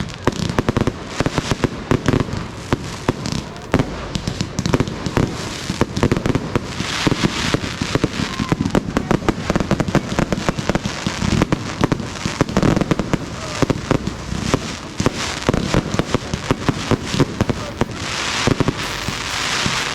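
Fireworks display going off in a dense, rapid barrage of sharp bangs and crackles, with stretches of hissing crackle about a third of the way in and near the end.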